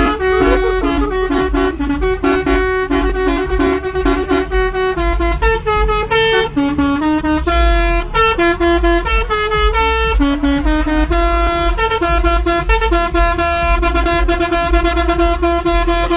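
Bus telolet horn, a set of musical air horns, playing a melody of short repeated and held notes over the steady low rumble of the moving bus.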